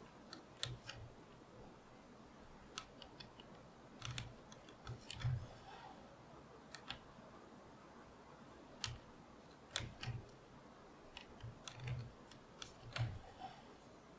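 Leather being saddle-stitched by hand: the needle pushed through the stitching holes and the thread drawn tight. This is heard as faint, irregular clicks and soft taps, a few with a dull thump.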